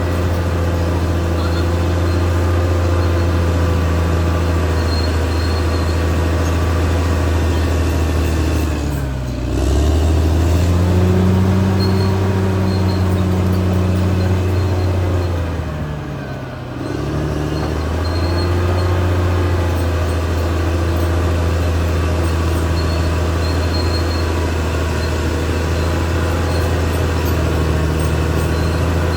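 Caterpillar D6R XL bulldozer's diesel engine running steadily under work. Twice, about nine and sixteen seconds in, the engine speed drops briefly and then picks back up.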